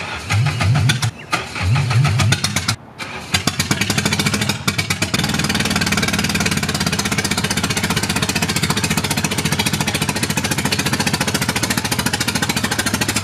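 Car engine cranked in a few short bursts, then catching about four seconds in and settling into a steady idle.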